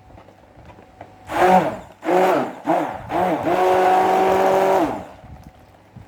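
Small handheld electric mixer run in short pulses, then held on for about a second and a half, stirring a citric-acid buffering solution into a cream hair conditioner. Each pulse whines up in pitch as the motor spins up and drops away as it stops.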